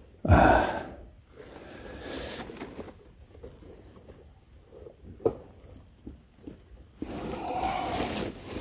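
Rustling of a gloved hand against moss and leaf litter while handling a mushroom, louder just after the start and again near the end, with a single sharp click about five seconds in.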